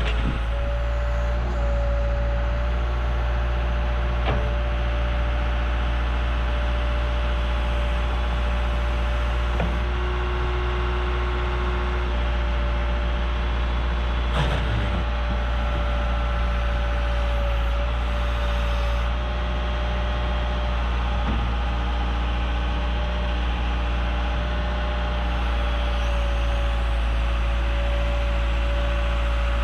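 Backhoe engine running steadily, with a steady higher whine over its low hum and a couple of sharp knocks.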